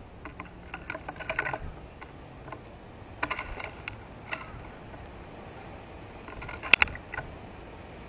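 Irregular clusters of sharp clicks and taps, the loudest a double click near the end: painted buntings pecking and hopping on a wooden seed platform.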